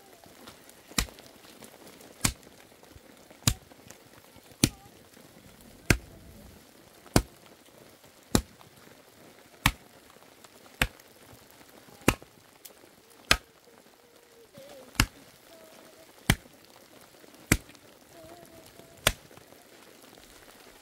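Steady chopping: about fifteen sharp strikes, roughly one every 1.2 seconds, with one slightly longer pause about two-thirds of the way through.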